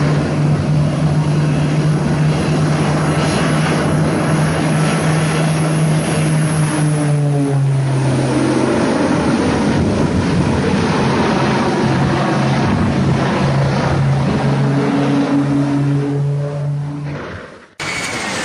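Aircraft engine running with a steady pitched drone over a rushing noise. Its pitch drops a little about eight seconds in and rises again near the end.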